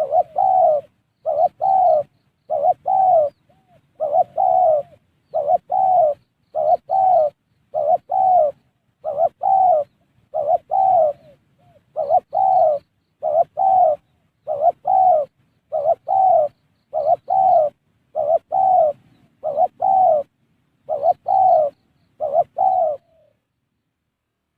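Spotted dove (tekukur) cooing: a long, regular run of short coos, mostly in pairs, that stops about 23 seconds in.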